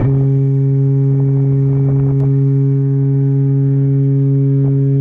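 A ship's horn sounding one long, steady, low blast.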